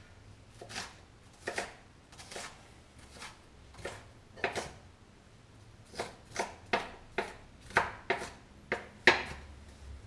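Large kitchen knife chopping red onion on a wooden cutting board: separate knife strikes, a few spaced out at first, then quicker and sharper from about the middle on.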